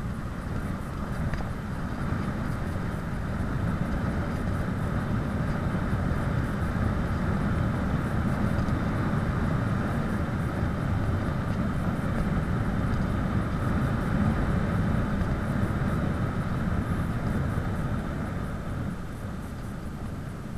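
Wind rushing over the microphone and tyre noise of a bicycle coasting downhill at speed, a steady noise that swells a few seconds in and eases off near the end.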